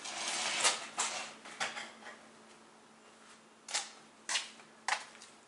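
Several short, sharp clicks and knocks at irregular intervals, with a faint steady hum underneath.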